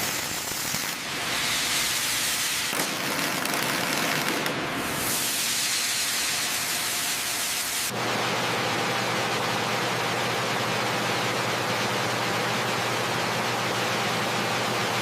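Steady hissing noise that spreads across the whole range from low to high, with an abrupt change in its character about eight seconds in.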